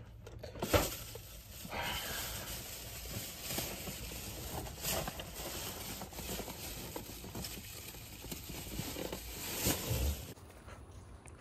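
Low rustling and handling noise over a steady hiss, with a few soft knocks, the sharpest about a second in.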